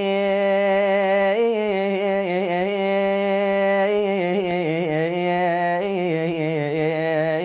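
A man singing an unaccompanied Arabic vocal line: one long, ornamented phrase whose pitch winds up and down, with no clear words.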